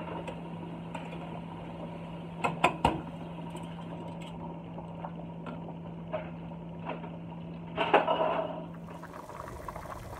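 Metal tongs clinking and scraping in a stainless steel pot as boiling pasta is stirred, with a few sharp clinks a few seconds in and a louder clatter near the end, over a steady low hum. Just before the end the hum drops away and water boiling in a pot is heard.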